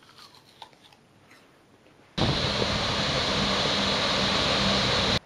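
Water cascading over the face of a masonry dam: a loud, steady rushing that starts suddenly about two seconds in. Before it, a quiet stretch with a few faint crunches of a child biting into an apple.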